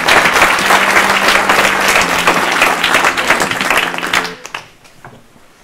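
Audience clapping, a dense round of applause that dies away about four seconds in.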